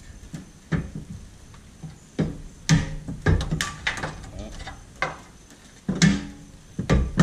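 A series of irregular hammer blows on a stuck rear brake rotor of a 1979 Corvette, about nine strikes, the metal rotor ringing briefly after some of them. The rotor is being knocked off the hub after its rivet heads have been drilled out.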